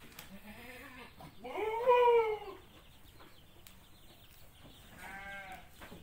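Etawah crossbreed (PE) goats bleating: a faint call at the start, then one loud bleat about a second and a half in that rises and falls in pitch over about a second, and a shorter, fainter bleat near the end.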